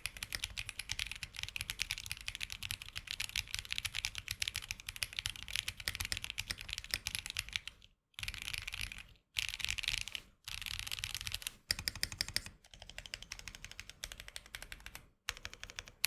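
Fast typing on a mechanical keyboard with Akko Snow Blue Grey smooth linear switches: a dense run of key clicks, then shorter bursts broken by brief silences after about eight seconds. The switches are stock, and the uploader says their springs ping until lubed.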